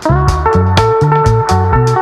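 Background music with a steady beat: plucked bass notes, drum hits and sustained melody tones.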